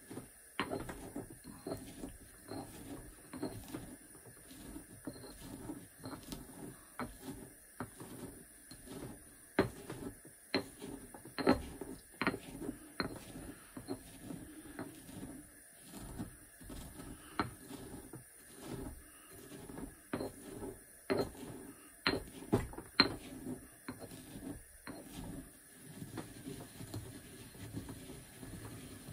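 Pestle grinding in a mortar, a steady rhythm of scraping strokes about twice a second, with sharp clinks of the pestle against the bowl now and then.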